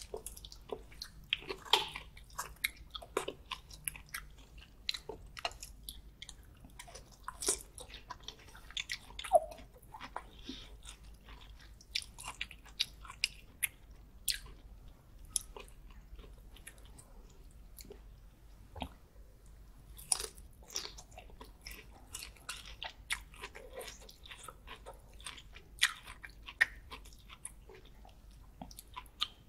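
Close-miked chewing and biting of garlic butter prawns and baby corn, with irregular sharp crunches and wet mouth clicks.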